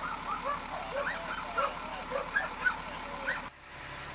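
A vehicle engine running steadily, with several dogs yelping in short, rising-and-falling cries at different pitches. The sound changes abruptly about three and a half seconds in.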